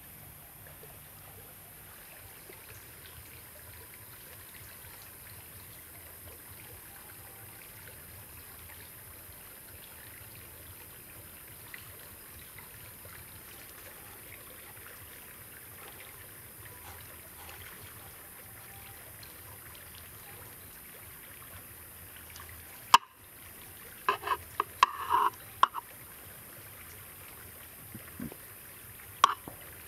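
A stream trickling steadily. About three-quarters of the way through come a cluster of sharp clicks and knocks, and one more just before the end.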